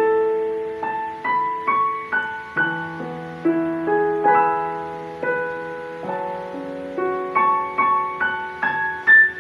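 Digital piano played with both hands: a slow melody of single notes struck about twice a second over held chords and bass notes.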